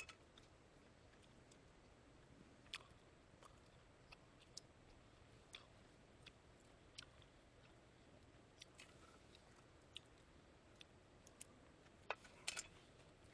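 Very quiet, with faint, irregular small clicks from someone eating with wooden disposable chopsticks and chewing. A short cluster of clicks comes about twelve seconds in.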